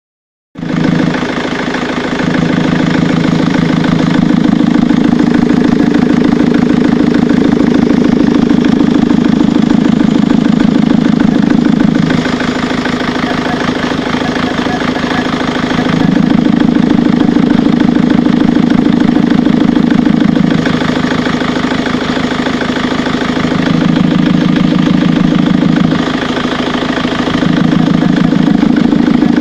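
Ford Mondeo Mk3 TDCi diesel engine idling, with a rapid knocking from the air filter box that appeared after the cam carrier cover was replaced. A deeper drone drops away and returns several times.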